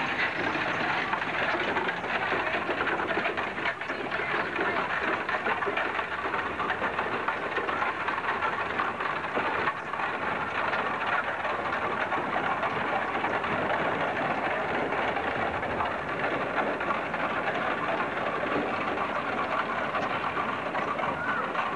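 A horse-drawn covered wagon rolling, with a steady rattle and clatter from its wheels and wooden frame.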